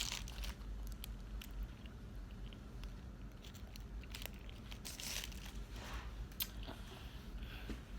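A person biting and chewing fast food close to the microphone, with scattered soft crunches and a few crinkles of food wrapping.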